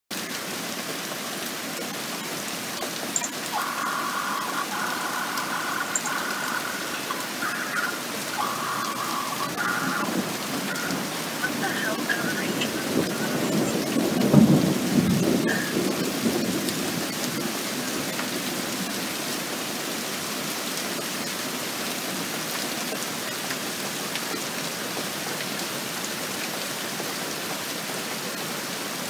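Steady rain falling throughout. About ten seconds in, a rumble of thunder builds, peaks and fades away over the next several seconds.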